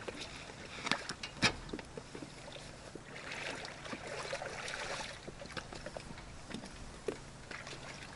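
Metal clanks and clicks from a boat trailer's bow winch and fittings being handled in shallow water, with water sloshing; the loudest clank comes about a second and a half in.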